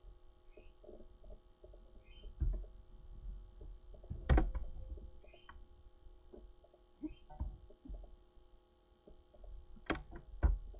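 Low steady electrical hum with a handful of scattered clicks and knocks, the loudest a little over four seconds in, and a few faint short high squeaks between them.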